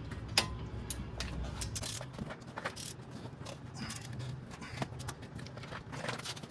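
Irregular light metallic clicks of a ratcheting torque wrench being worked on the caliper bracket bolts of a truck's front brake.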